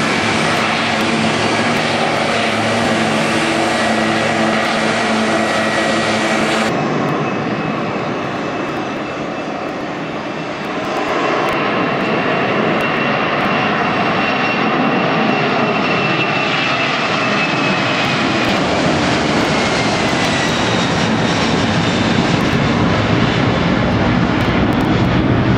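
Piston engines of a vintage propeller airliner running with a steady, pitched hum for the first seven seconds or so. After an abrupt cut, a twin-engine jet airliner at takeoff thrust: a dense jet roar that eases briefly, then builds again as the plane lifts off and climbs.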